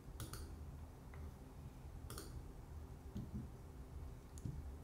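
A few faint computer mouse clicks: a quick double click just after the start, then single clicks about two, three and four and a half seconds in.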